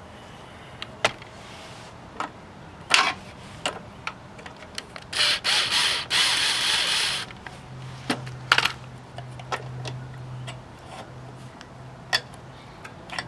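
Hand tools and metal engine parts clicking and knocking as the carburetor is worked loose from a Honda HR214 lawnmower engine, with about two seconds of rasping, scraping noise partway through.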